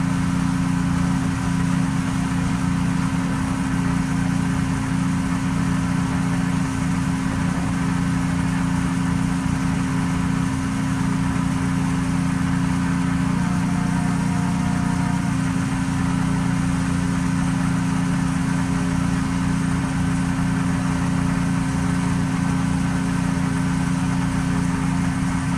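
An engine running steadily at a constant speed, with no change in pitch.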